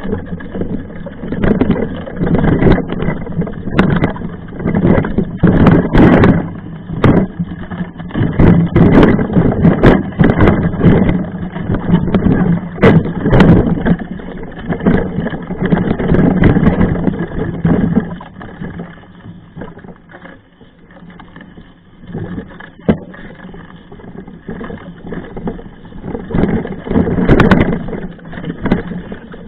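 Mountain bike clattering and knocking over a rough trail in an uneven, irregular stream of rattles and jolts. It eases off for a few seconds past the middle, then picks up again.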